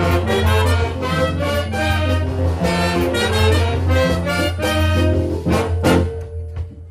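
Jazz big band playing a mambo: brass and rhythm section over a steady bass line. Near the end the band drops out to a single held note.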